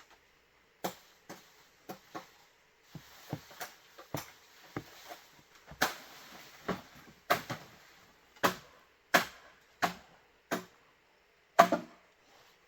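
A hand tool striking bamboo again and again: about twenty sharp strikes at an uneven pace, the loudest near the end.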